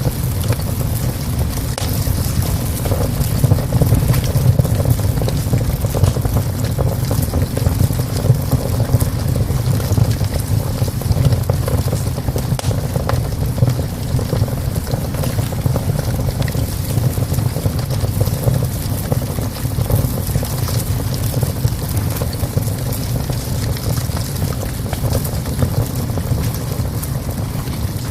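Wood fire of twigs and logs burning in a small stove, crackling and popping over a steady low rumble.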